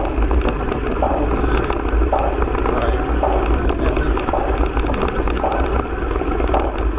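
Mountain bike rolling fast down a wet, rough dirt road: wind noise on the microphone over tyre rumble, with small rattles and clicks from the bike over the bumps.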